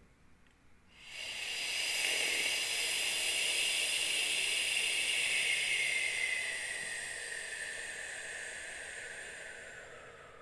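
A woman's long 'shh' exhale, the sounded out-breath of a yoga breathing exercise, pushed out with the lower belly muscles. It starts about a second in, holds strong for several seconds, then fades slowly as the hiss drops in pitch.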